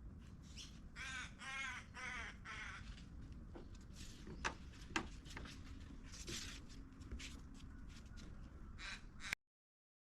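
A crow calling with drawn-out, wavering caws, three in a row about a second in and more later. There are a couple of sharp clicks in the middle, and the sound cuts off abruptly near the end.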